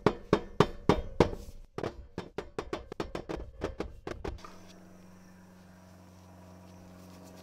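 A dozer's wire-mesh air filter element knocked again and again against the steel track shoe to shake the dirt out: a run of quick thunks, about four a second, for roughly four seconds. After that, a faint steady hum.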